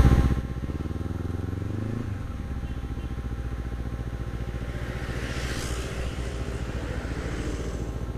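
Honda CBR250RR parallel-twin motorcycle engine heard from the rider's seat. It drops from a louder run to low revs about half a second in, then keeps putting along evenly as the bike rolls slowly.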